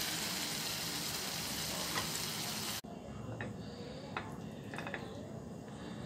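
Egg and fenugreek curry sizzling steadily in a frying pan as a spatula scoops it out. The sizzle cuts off suddenly about three seconds in, leaving a few faint light clicks as the food is set on a plate.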